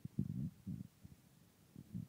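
Hooves of a trotting horse thudding on the soft footing of an indoor arena: low, muffled thuds in uneven clusters, strongest in the first half second.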